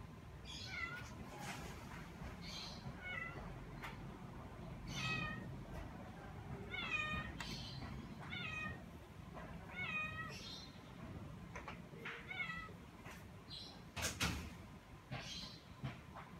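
Domestic cat meowing repeatedly, about ten short calls, roughly one every second and a half. A couple of sharp taps sound near the end.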